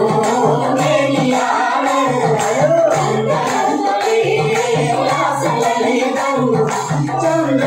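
Music: a Malayalam song with singing over a steady percussion beat.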